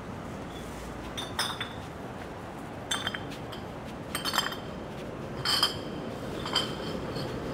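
A series of sharp clinks, about five strikes roughly a second apart, each with a short high ring at the same pitch, like small metal or glass objects knocking together. Steady city-street background noise runs underneath.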